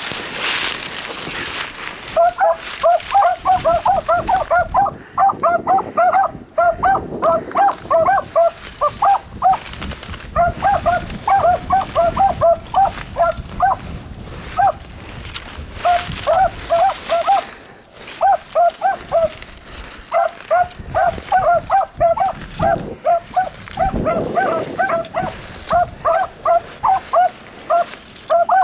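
Beagles in cry on a rabbit's trail: a long run of short barks at one pitch, about three or four a second, broken by a few short pauses. Wind noise on the microphone in the first couple of seconds.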